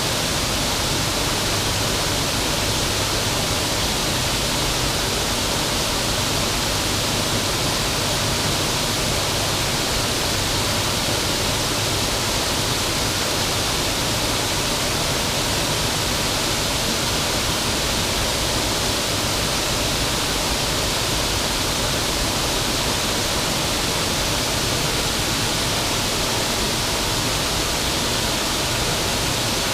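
Water pouring over a river waterfall, a steady, unbroken rush.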